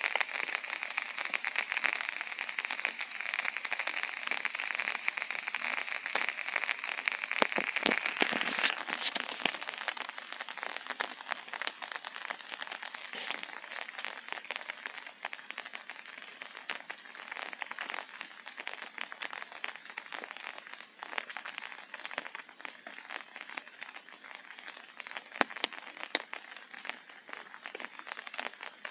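Rain falling on a tent, heard from inside: a dense pattering of drops on the fabric, heavier at first and easing after about ten seconds, with a few louder single drops standing out.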